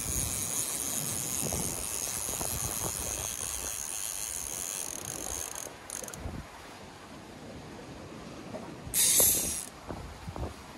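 Baitcasting fishing reel whirring: a steady high hiss for about the first half that cuts off suddenly, then a short louder burst near the end, over a low wind rumble on the microphone.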